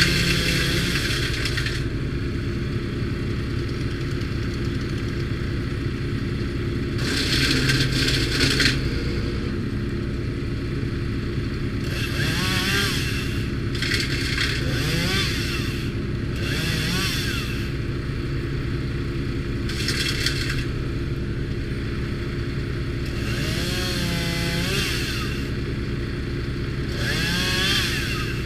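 Timberwolf TW13/75 G wood chipper's engine running steadily while branches are fed through, each load chipped in a burst of rasping, crackling noise with a squeal from the wood, about eight times.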